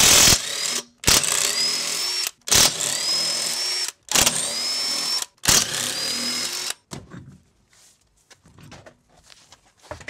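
Cordless impact wrench with a socket extension spinning off wheel lug nuts in five loud bursts of about a second each, each starting with a rising whine. Quieter handling sounds follow.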